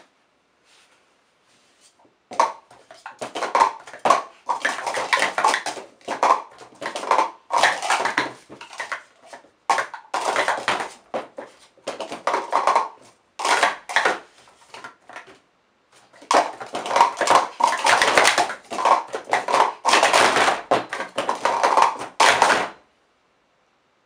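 Teal plastic sport-stacking cups being rapidly stacked up and knocked down on a mat in a speed-stacking cycle, a quick run of light plastic clatters and taps. The clatter comes in three long stretches, with short breaks about a third and two thirds of the way through.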